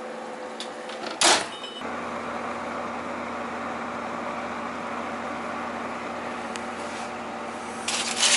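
Steady mechanical hum from a kitchen appliance with a few fixed tones in it, broken about a second in by one loud, short metal clatter as the foil-lined baking pan of chicken is handled, with crinkling foil near the end.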